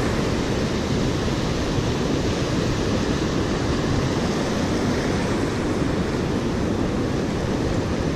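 Heavy ocean surf breaking and washing up a sandy beach, a steady rushing noise.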